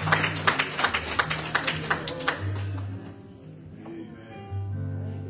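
A congregation clapping over held low organ chords. The clapping dies away about two and a half seconds in, and the organ keeps holding its chords more quietly.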